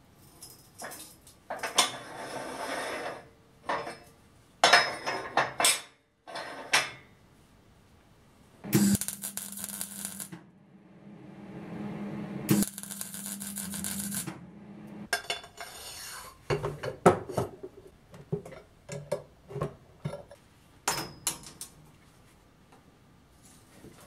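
Metal workshop sounds: two stretches of MIG welding crackle near the middle over a steady low hum from the welder, with short sharp clinks and taps of steel parts and tools around them.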